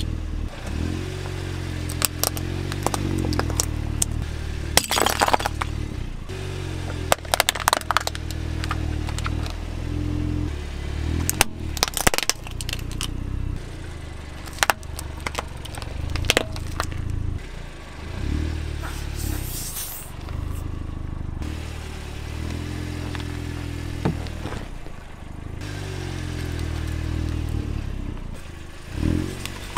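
A car tyre rolling slowly over small plastic toys and objects, crushing them with repeated sharp cracks and crunches, over the steady low sound of the car's engine moving at a crawl.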